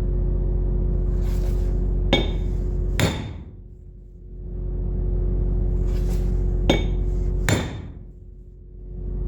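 Sharp metal-on-metal strikes, two pairs about a second apart, as the fan bearing shaft is driven out of the engine's thermostat housing. Under them a steady machine hum fades out and builds back up twice.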